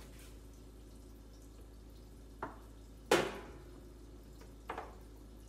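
Handling knocks and clicks from a yogurt maker and its power plug being fumbled toward the socket: three short knocks, the loudest about three seconds in with a brief ringing tail, the last a quick double click.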